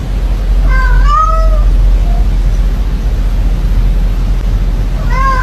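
A cat meows twice, about a second in and again near the end, each meow rising and falling in pitch, over a steady low rumble.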